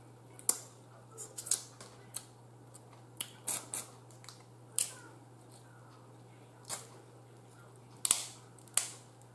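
Boiled snow crab legs being cracked and snapped open by hand, giving a series of sharp, short shell cracks and clicks at irregular intervals, about a dozen in all, over a faint steady low hum.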